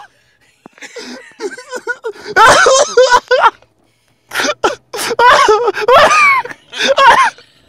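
A person laughing hard, with no words, in several loud bursts broken by short pauses for breath.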